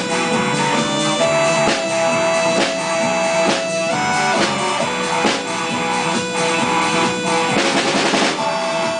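A band playing a song, with guitar and a drum kit. Held notes run over steady drum strokes, with a noisy wash about a second before the end.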